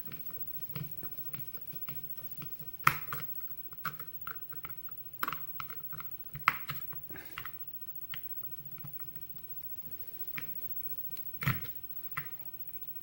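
Flathead screwdriver working at the tight, Loctite-locked screws of a Sargent lock cylinder: irregular small metal clicks, scrapes and taps, with sharper knocks about three, six and eleven seconds in.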